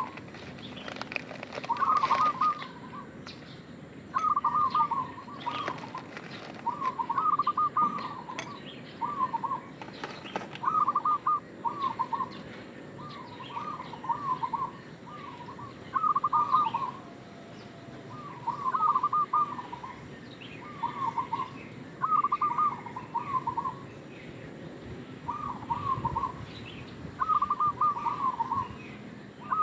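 Zebra dove (perkutut) singing its cooing song: short, rippling coo phrases repeated every second or two, with a few slightly longer pauses between them.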